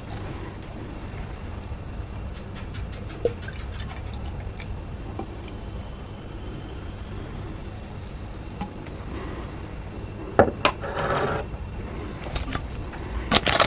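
Fanta orange soda poured from a plastic bottle into a glass, with the soft hiss of liquid filling and fizzing. Near the end come a few sharp knocks and a brief rustle as the bottle is handled and put down.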